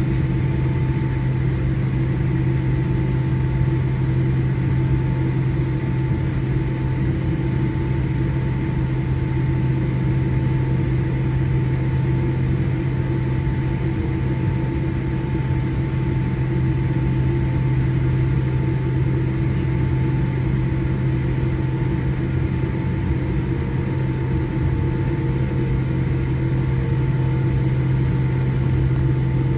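Steady cabin noise inside a Boeing 787-8 taxiing with its engines at idle: a low drone with a fainter steady whine above it.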